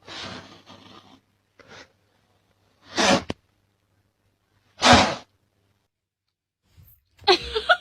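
Two sharp sneezes, about two seconds apart.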